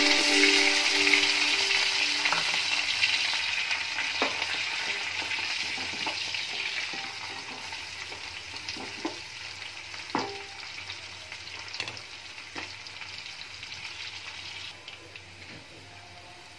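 Chopped onions sizzling as they hit hot oil in a pan. The sizzle is loud at first and dies down steadily as they cook, with several short knocks of a wooden spatula against the pan while they are stirred.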